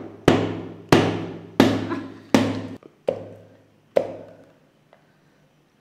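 Wooden mallet knocking on the hollow chocolate shell of a piñata cake: six sharp knocks, about two-thirds of a second apart, each with a brief ring. The last two knocks are fainter as the shell breaks open at the top.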